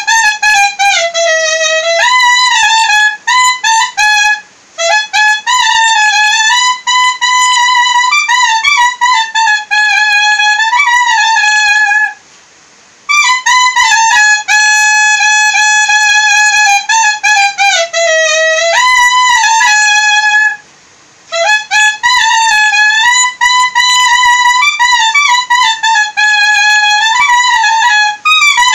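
Solo clarinet playing a high, ornamented melody with quick bends and turns. It is broken by three short pauses for breath.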